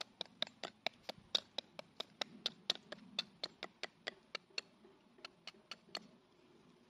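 Cold Steel Trail Hawk tomahawk, gripped short near the head, chopping into a small stick on a stump in quick, light strokes. It makes a run of sharp knocks, about four a second, with a brief pause and then a few more before stopping about six seconds in.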